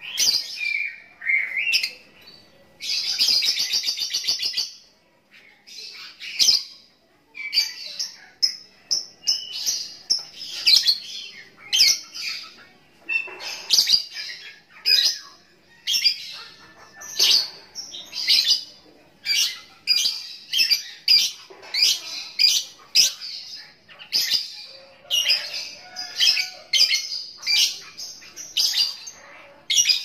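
Caged lovebird singing: quick strings of short, high chirps, with one longer unbroken trill about three seconds in.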